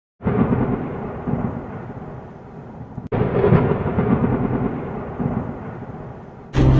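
Thunder: two claps, one at the start and one about three seconds in, each rumbling and fading away.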